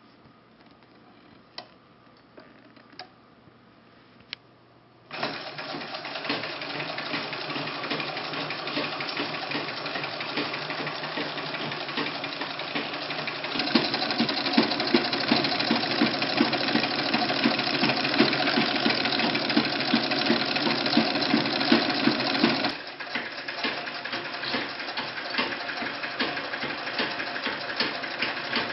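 1894 Singer boat-shuttle treadle sewing machine sewing, its mechanism clattering rapidly and evenly. It starts suddenly about five seconds in, after a few light clicks, runs louder through the middle, and eases back somewhat near the end.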